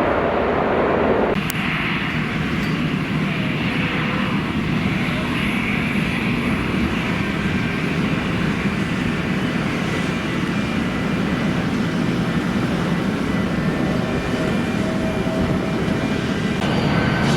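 Jet airliner engines running, a steady dense noise with faint whining tones. The sound changes abruptly about a second in and again near the end.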